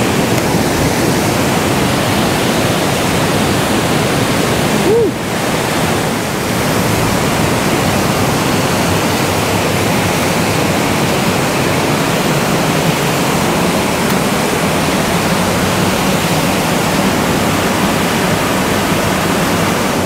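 Steady rush of white water from a mountain-runoff waterfall and river pouring through a rocky gorge, with a brief dip about five seconds in.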